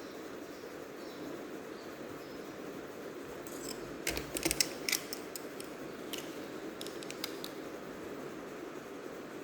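Small sharp clicks and snaps of a laptop's parts being handled during disassembly, bunched together near the middle, over a steady low hum.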